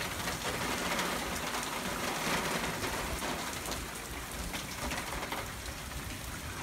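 Steady rain falling, with faint scattered drip ticks.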